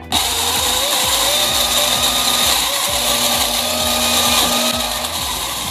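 Compact single-serve blender switching on abruptly and running steadily at full speed with a high whine, chopping cubed mango into puree.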